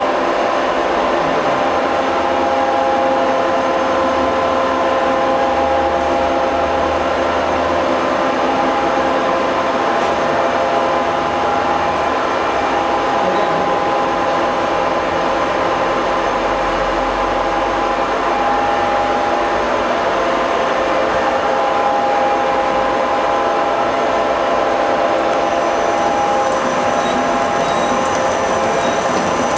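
Horizontal flow-wrap packaging machine running steadily: a constant mechanical whir with a few held whining tones from its drives.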